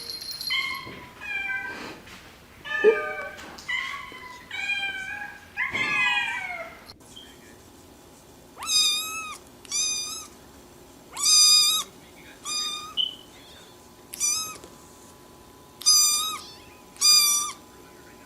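Kittens mewing: first a run of overlapping high calls sliding in pitch. After an abrupt change about seven seconds in, about eight short high meows of even pitch follow, roughly a second or so apart.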